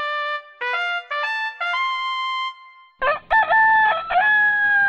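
A short electronic jingle of four notes stepping upward, then a rooster crowing in three parts, ending on a long drawn-out note.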